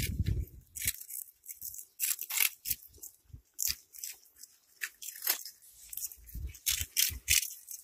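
Cats chewing crunchy puffed snack balls: a quick, irregular run of dry crackling crunches, with a few low thumps near the end.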